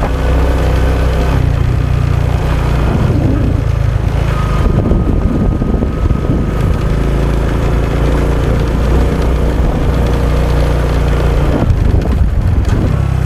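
Honda XRM 125 dual sport's single-cylinder four-stroke engine running under way, with the engine note shifting about a second in and again near the end.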